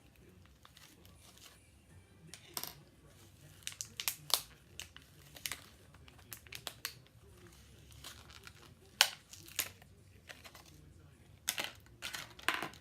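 Cosmetics packaging being handled and opened: scattered crinkling, tearing and sharp plastic clicks, in clusters a few seconds apart.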